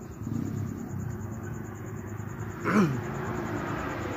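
Low steady rumble of wind buffeting the phone microphone, with one short sound that falls in pitch about three seconds in.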